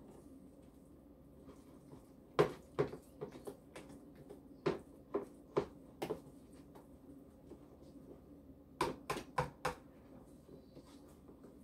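A whisk stirring pancake batter in a ceramic bowl, knocking against the bowl's sides in irregular clicks, with a quick run of about four knocks near the end.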